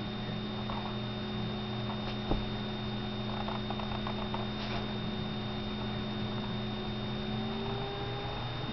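Steady electrical mains hum with a thin high whine above it, and one soft tick a little over two seconds in.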